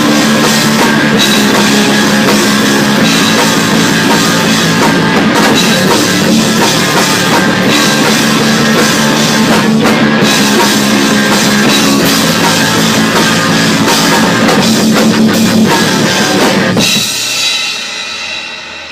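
Loud rock music with a driving drum kit and guitar. It stops about 17 seconds in, leaving a ring that fades out.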